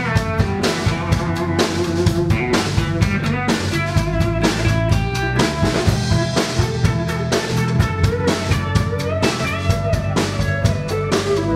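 A live rock band plays an instrumental break: a Telecaster-style electric guitar plays note lines over a drum kit and an electric bass, with a steady beat.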